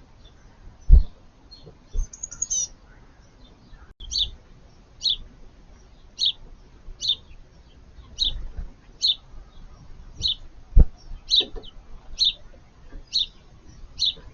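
Small songbird at a garden feeder repeating a short, high call about once a second, with a brief higher trill before the series starts. Two sharp low knocks, about a second in and near eleven seconds.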